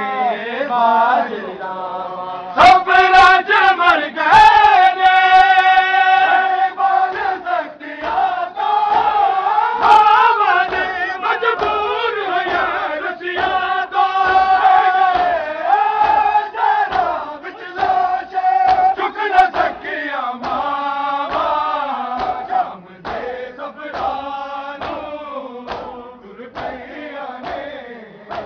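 Men chanting a mourning lament (noha) in unison, with hands slapping on bare chests (matam) in a steady beat under the singing. It grows louder about three seconds in.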